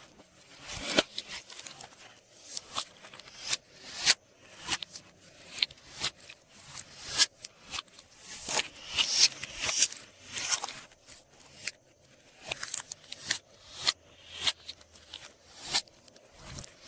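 Glossy slime being mixed and squished, making a run of sticky clicks and pops about two or three times a second, some drawn out into short crackles.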